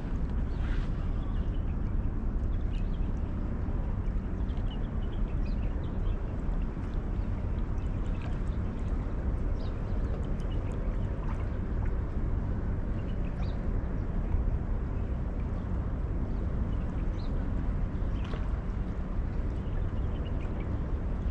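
Steady wind rumble on the microphone with water lapping against shoreline rocks, and faint scattered ticks.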